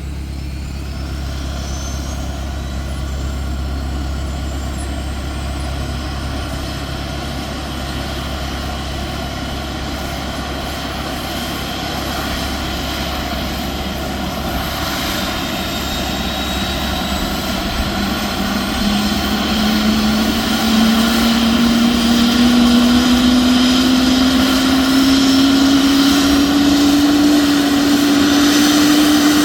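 Airbus H145 D3 helicopter starting up: a high turbine whine climbs in pitch, and about two-thirds of the way through a strong low tone appears and rises steadily in pitch as the sound grows louder.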